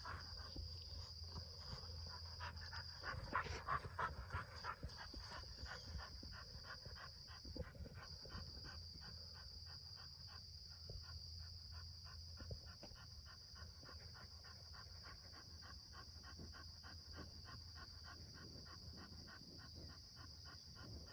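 A bulldog panting quickly and evenly, out of breath from a ball-chasing workout.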